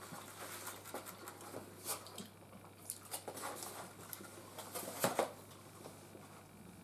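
Quiet eating sounds: a metal fork clicking and scraping in a foam takeaway tray, with chewing and small handling noises. A louder click comes about five seconds in.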